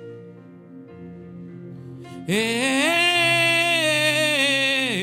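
Worship music: soft sustained keyboard chords, then about two seconds in a loud held note slides up in pitch, holds with a slight waver, and bends down as it ends.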